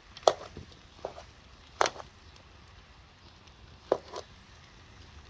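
A ladle knocking against the cooking pot while noodles are stirred: about five sharp clacks, spaced unevenly over a few seconds.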